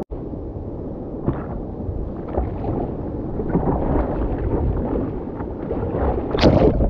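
Choppy sea water sloshing and splashing around an inflatable stand-up paddleboard, with wind rumbling on the board-mounted camera's microphone. A louder splash comes near the end.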